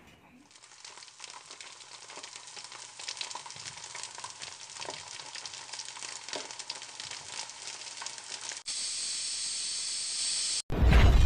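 Logo-reveal sound effect: a crackling, sizzling noise that builds slowly, changes to a steady high hiss near the end, then breaks off into a sudden loud low hit.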